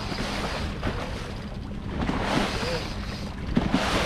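A small fishing boat trolling on open water: a steady outboard motor hum under wind and water noise, with water surging louder against the hull about two seconds in and again near the end.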